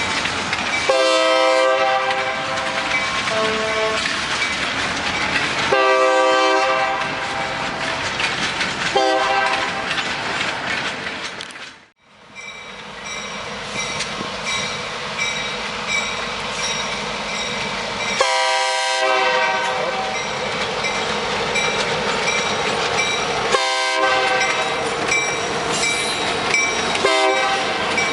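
Locomotive #4612's Nathan K3LA three-chime air horn sounding six extremely loud blasts in two groups of three, over the continuous rumble and clatter of the train. A brief drop-out about twelve seconds in divides the groups, and the first blast of each group is the longest, the later ones short.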